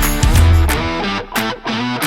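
Background rock music with distorted electric guitar and a heavy beat.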